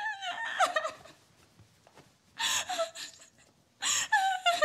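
A woman wailing and sobbing in grief: three bouts of high, falling, breaking cries with short silences between.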